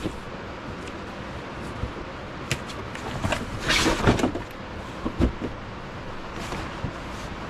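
The lid of a stiff, thick cardboard box is pulled up and slid off, with a scraping rustle and a few light knocks about halfway through. A steady hiss of heavy rain runs underneath.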